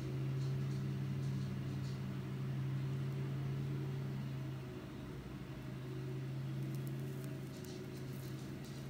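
Steady low motor hum, with a few faint ticks near the end.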